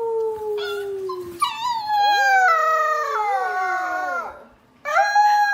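Dog howling in long, wavering calls that slide down in pitch. One howl breaks off about four and a half seconds in and a new one starts half a second later.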